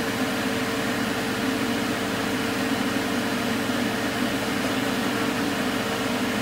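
Refrigerant recovery machine running steadily with a constant hum, pulling refrigerant out of a reach-in freezer's system through the high side.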